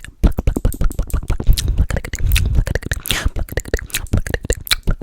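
Close-miked ASMR trigger sounds: a rapid, irregular run of clicks and taps with deep thumps against the microphone.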